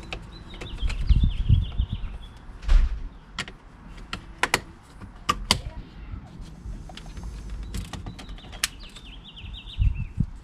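Plastic door trim pieces being handled and fitted back on a truck door: a run of sharp clicks and knocks with a few dull thumps. A songbird sings a fast trill that slides down in pitch twice, near the start and near the end.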